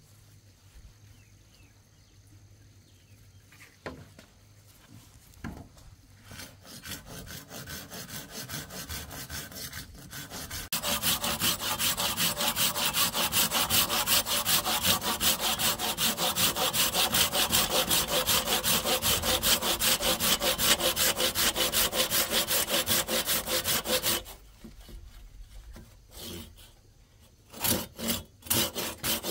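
A hand pruning saw cuts through a green bamboo pole with rapid back-and-forth strokes. Two short knocks come before the sawing, which starts faintly and turns loud and steady about a third of the way in. It stops abruptly past the middle, and a few more strokes follow near the end.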